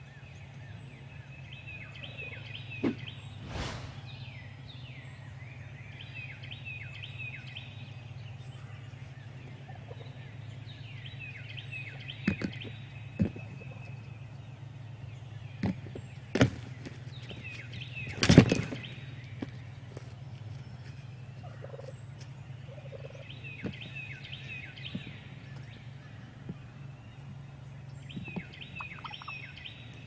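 Wild turkey tom gobbling over and over, about every five seconds. A few sharp knocks fall between the gobbles, the loudest about eighteen seconds in, over a steady low hum.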